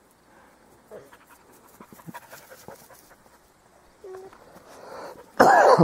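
Dog panting close by, followed near the end by a short, loud cry with a wavering pitch.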